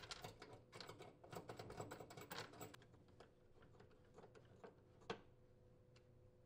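Faint quick clicking and scraping of a mounting bolt and washer being turned in with a screwdriver. The clicks are dense for about three seconds, then thin out, with one sharper click about five seconds in.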